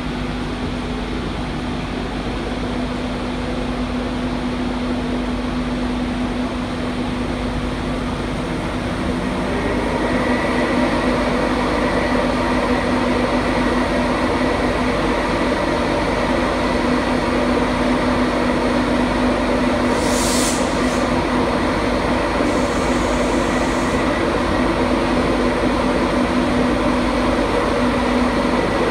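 Class 91 electric locomotive humming with several steady tones, from its traction equipment and cooling fans. It grows louder about ten seconds in as it starts to pull slowly away. A brief hiss comes about twenty seconds in.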